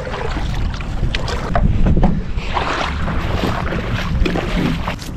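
Kayak paddle strokes dipping and splashing in the water at irregular intervals, with wind buffeting the microphone.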